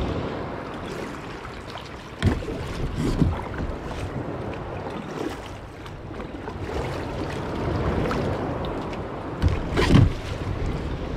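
Wind rushing over the microphone and water washing against a sea kayak's hull, swelling and easing, with a few short knocks: two about two and three seconds in and a louder pair near the end.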